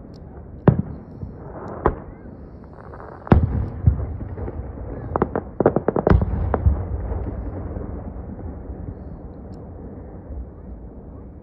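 Aerial firework shells bursting: single bangs about one, two, three and four seconds in, then a quick run of sharp cracks between five and six and a half seconds in, with a low rumble that trails off after them.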